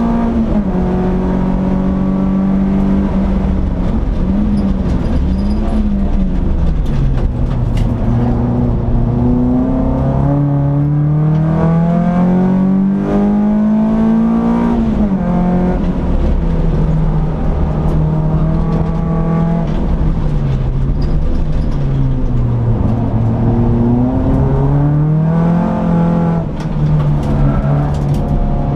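Peugeot 206 S16's four-cylinder engine heard from inside the cabin while driven hard on a track. The engine note holds, wavers, and drops suddenly at gear changes and lifts; around the middle it climbs steadily in pitch for several seconds under full throttle before falling away, with a constant rush of road and wind noise underneath.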